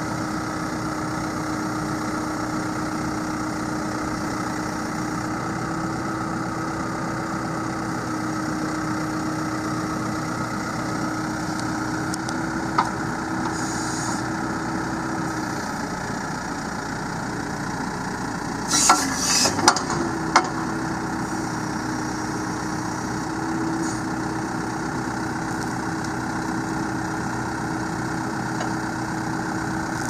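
2005 New Holland LB75B backhoe's four-cylinder diesel engine idling steadily, with a brief cluster of loud knocks and clanks about two-thirds of the way through.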